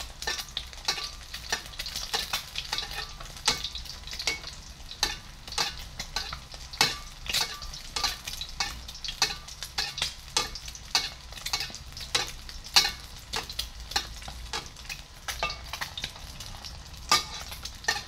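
An egg frying in hot oil, sizzling with many sharp pops and spatters a second as hot oil is spooned over it; the lively popping is the sign of oil hot enough to crisp and brown the egg's edges.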